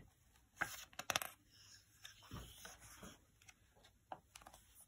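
Page of a picture book being turned by hand: a few short paper rustles and flaps, the loudest about a second in, followed by faint scattered handling ticks.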